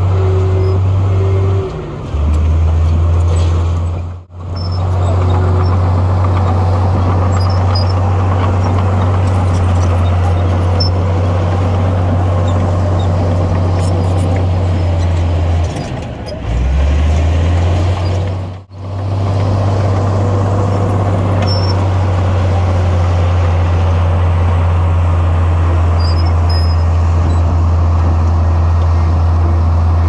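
Bulldozer's heavy diesel engine running steadily under load, with a deep, even note. The engine pitch drops about two seconds in, then sags and climbs back around two-thirds of the way through, as the machine pushes dirt. The sound cuts out abruptly for an instant twice.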